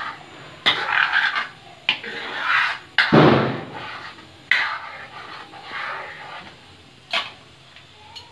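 Steel ladle stirring thick horse gram dal in an iron kadhai: repeated knocks and scrapes of the ladle against the pan, a few seconds apart, with a dull thump about three seconds in.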